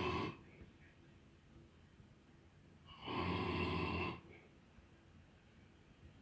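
An old man snoring in his sleep, one loud snore about every four seconds. The tail of one snore falls at the very start, and a full snore of about a second comes about three seconds in, with quiet breathing between.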